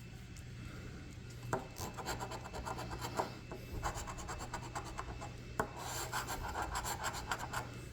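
Scratching the latex coating off a lottery scratch-off ticket: quick raspy scraping strokes that start about a second and a half in.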